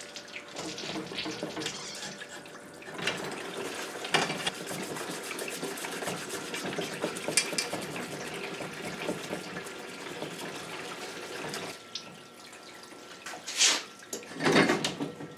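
Pumped stream of cleaning solution from a hose splashing over small-engine parts in a homemade cooler parts washer, running steadily, then dropping off about three-quarters of the way through. Near the end come two short, louder sounds as the parts are moved around in the tub.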